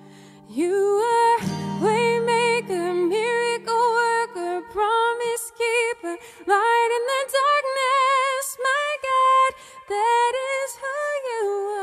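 A woman singing a slow worship song solo, her voice sliding between and holding long notes. An acoustic guitar chord is strummed about a second and a half in and rings out, leaving the voice almost alone for the rest.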